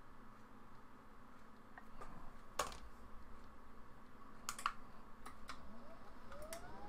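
Scattered light clicks and taps of small repair tools being handled on a workbench, with a rising whine starting near the end.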